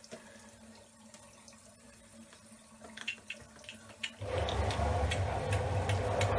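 A few faint clicks, then about four seconds in a steady rush of water running from a tap starts abruptly and stays loud.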